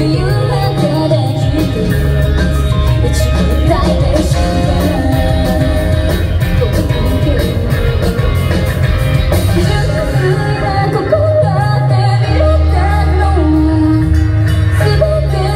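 Live rock band playing a song with a female lead singer: electric guitar, bass and drums under a strong sung melody.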